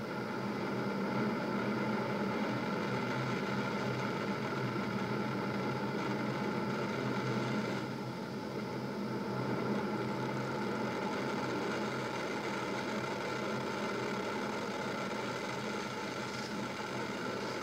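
Falcon 9 first stage's nine Merlin engines during ascent, a steady rumble that swells at the start and holds.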